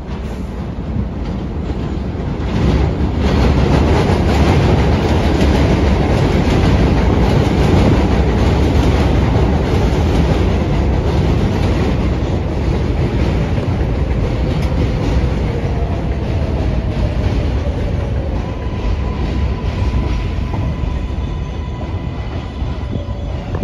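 R33/R36 Redbird subway train moving along the elevated platform: a loud rumble and clickety-clack of wheels on the rails, building over the first few seconds. A faint whine falls in pitch past the middle, and a steady higher whine comes in over the last few seconds.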